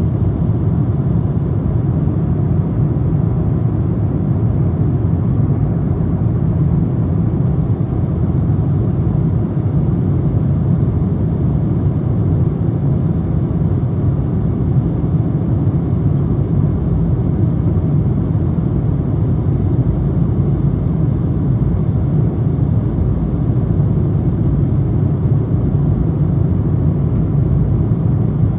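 Boeing 777-200 cabin noise in flight, heard at a window seat beside the wing and its turbofan engine: a steady, deep rush of engine and airflow noise that does not change.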